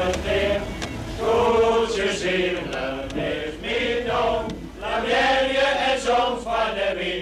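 A group of people singing a chant together.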